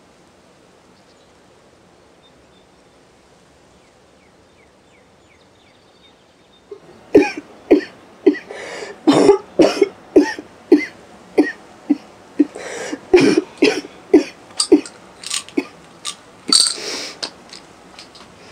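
A woman's coughing fit into a handkerchief. After a quiet stretch, about twenty coughs come in quick succession, roughly two a second, lasting about ten seconds.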